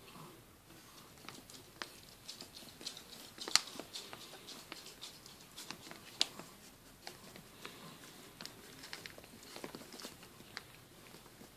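Griffon Bruxellois puppies nursing: irregular soft clicks and smacks of suckling, with faint rustling against the fleece and two louder clicks, about a third of the way in and about halfway.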